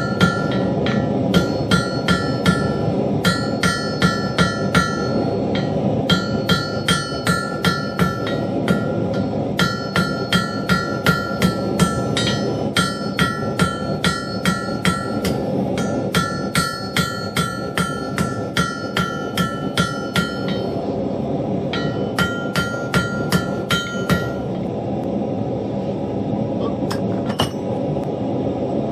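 Hand hammer striking hot steel on an anvil, the anvil ringing with each blow, about three blows a second in runs of a few seconds with short pauses as the finial is rounded up. The blows stop about four fifths of the way in, leaving a steady rushing noise underneath, with a couple of single strikes near the end.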